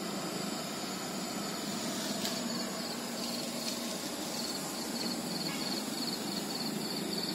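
Night insects chirping in a steady pulsed rhythm, about three pulses a second, becoming clearer about halfway in, over a steady background hiss.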